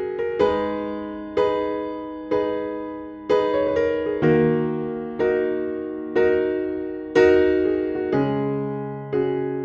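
Soft background piano music: chords struck about once a second, each ringing out and fading before the next.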